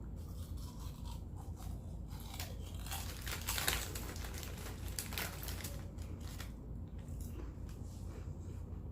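Potato chips being crunched and chewed close to the microphone: irregular crisp crackles, busiest about three and a half seconds in.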